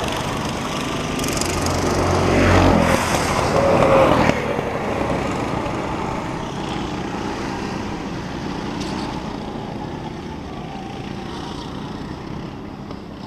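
Go-kart engines running on the track, with one kart passing loudest for a couple of seconds near the start and then its sound fading away into the distance.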